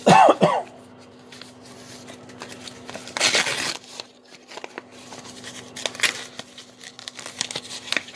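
Paper envelope being torn open and crumpled by hand, already ripped up by postal sorting machines, with paper rustling and crinkling; the loudest tearing comes about three seconds in, with shorter rustles later. A brief loud sound right at the start, and a faint steady hum underneath.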